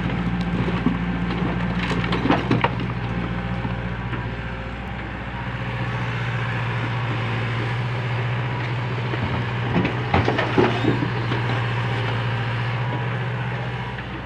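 Backhoe engine running at a steady speed, with a few sharp knocks and cracks about two seconds in and again around ten seconds.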